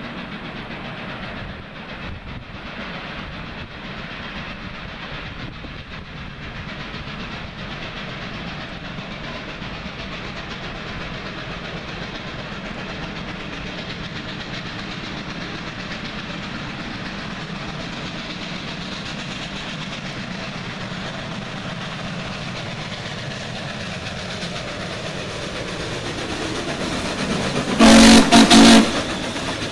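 Steam locomotive 734, a 2-8-0, working up a steep grade with its train, its noise growing louder as it approaches. About a second and a half before the end, a very loud steam whistle blast lasting about a second sounds as the engine passes close by.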